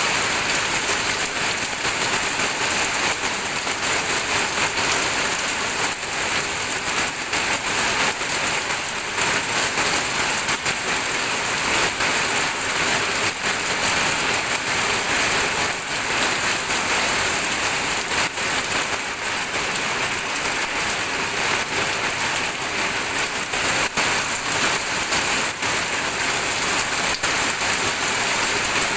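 Steady rain falling, a dense even hiss with scattered drop patter.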